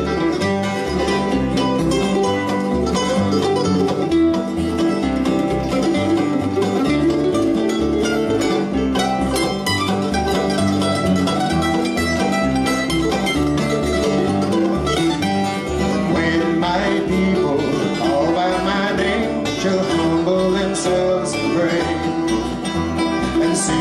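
Bluegrass band playing an instrumental break on acoustic plucked strings, mandolin among them, over a steady driving beat.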